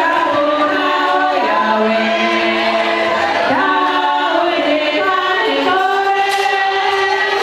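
A group of voices singing a hymn together, holding long notes and sliding between them.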